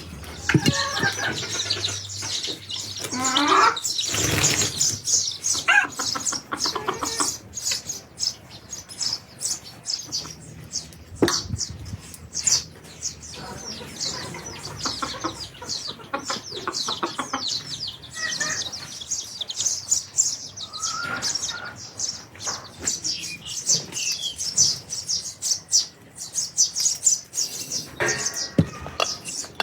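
Birds chirping rapidly and continuously in a dense high-pitched chatter, with a few lower calls mixed in and occasional sharp knocks, one louder knock about four seconds in.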